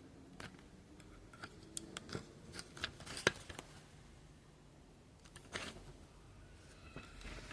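Scattered light clicks and short rustles of handling, irregularly spaced, with the sharpest click about three seconds in.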